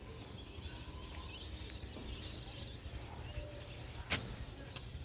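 Outdoor ambience: a steady low rumble with a few faint, distant bird calls, and one sharp click about four seconds in.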